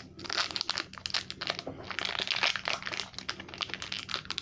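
Plastic wrapper of a KitKat matcha bar crinkling as it is pulled and torn open by hand: a dense run of irregular crackles.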